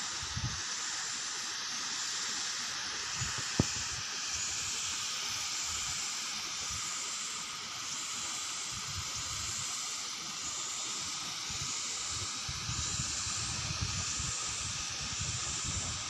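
A steady high hiss, with a single sharp click about three and a half seconds in and wind buffeting the microphone in the last few seconds.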